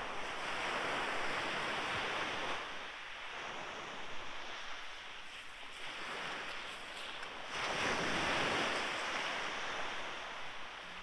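Small waves breaking and washing up the beach: a hiss of surf that swells and fades, loudest about a second in and again about eight seconds in.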